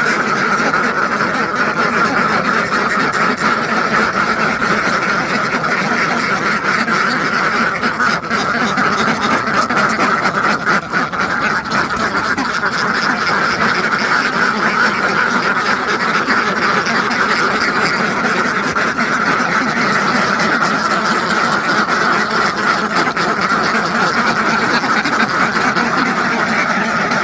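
A large flock of farmed domestic ducks quacking continuously, hundreds of calls overlapping into one steady chorus.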